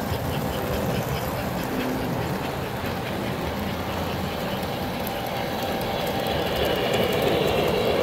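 S gauge model trains running on the layout's track, wheels rolling and clicking over the rail joints. The sound grows louder over the last two seconds as a steam locomotive comes close.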